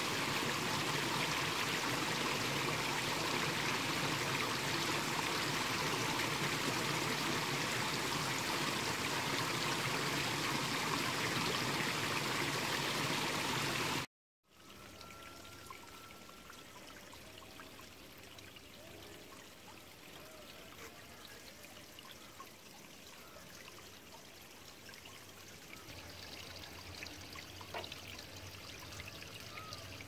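Shallow stream rushing over a gravel bed, a loud, even rush of water. About fourteen seconds in it cuts off abruptly and gives way to a much quieter, softer water sound with a few faint short whistles.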